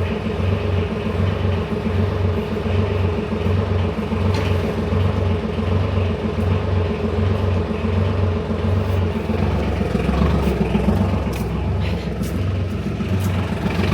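Vehicle engine running steadily, with a loud low throb that pulses about twice a second.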